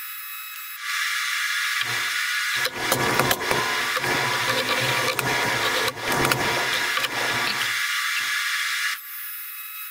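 TIG welding aluminum diamond plate: a steady arc hiss briefly at the start and again near the end. In between there are knocks and rattling as the torch and a clamp are handled on the steel table.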